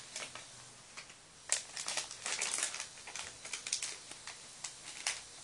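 A My Little Pony blind bag's plastic wrapper being torn open and crinkled by hand: irregular crackling and rustling in quick uneven bursts.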